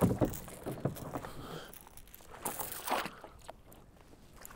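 Kayak anchor chain clinking and rattling as it is hauled in by hand, in a few bunches of metal clinks.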